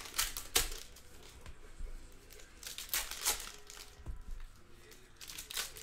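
Trading-card pack wrappers crinkling and tearing as packs are opened by hand, in a few short rustling bursts: near the start, about three seconds in, and near the end.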